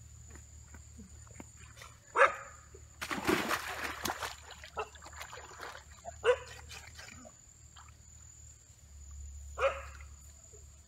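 A dog barking: three single barks, about two seconds in, about six seconds in and near the end. Between the first two barks comes a loud burst of noise lasting about a second.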